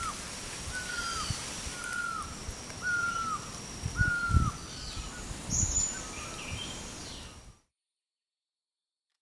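An animal's short call repeated about once a second, each a brief note sliding down in pitch, over a faint steady high whine. All sound cuts off suddenly near the end.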